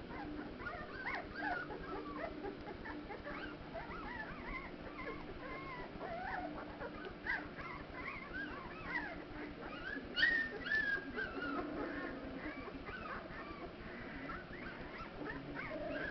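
A litter of newborn Curly-Coated Retriever puppies squeaking and whimpering as they jostle to nurse, many short high squeaks overlapping. About ten seconds in, one louder squeal falls in pitch. A faint low steady hum runs underneath.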